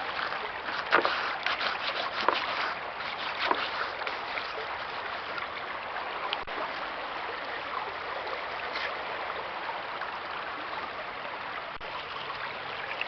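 Steady rush of flowing river water, with a few small sharp taps in the first few seconds.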